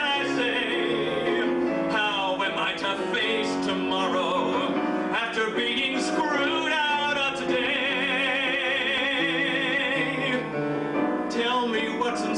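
A man singing a ballad live with piano accompaniment. About two thirds of the way in he holds one long note with vibrato.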